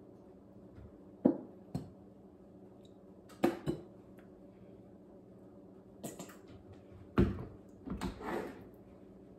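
Plastic squeeze bottle of Dijon mustard being handled, shaken and squeezed: a few sharp clicks and knocks, the loudest about seven seconds in, with softer handling noises between and a faint steady hum underneath.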